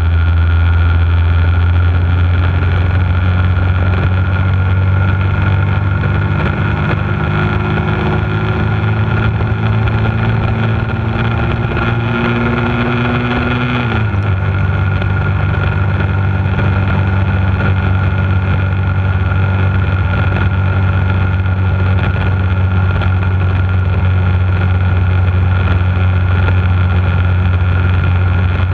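Bullit Hunt 125 cc motorcycle engine running while riding. Its pitch climbs slowly for about ten seconds, drops suddenly about halfway through, then holds steady.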